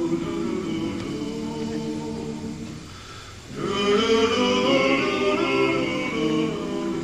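Barbershop quartet singing a cappella in close four-part harmony, holding sustained chords. The chords soften to a brief near-pause about halfway, then a loud full chord comes in.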